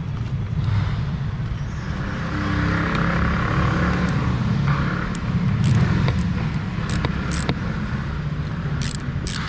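Steady low rumble of nearby vehicle traffic. A few sharp clicks come through, and near the end a hand ratchet starts clicking in a quick, regular run as a fitting is tightened.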